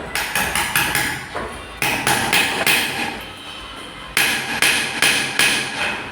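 Hammer striking metal in goldsmith's work, in three quick runs of ringing blows about five a second with short pauses between.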